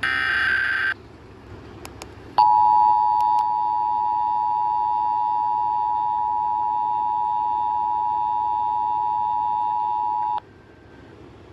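Emergency Alert System test tones: a short burst of SAME data tones, then the EAS two-tone attention signal (853 and 960 Hz together) held steady for about eight seconds before cutting off abruptly.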